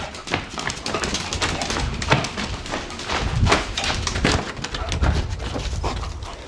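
English bulldog trotting across a hardwood floor and out through a door: a run of irregular clicks and knocks from its paws and nails.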